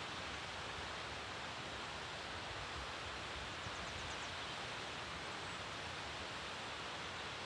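Steady, even rush of a tall mountain waterfall running full after recent rains, heard from some way off.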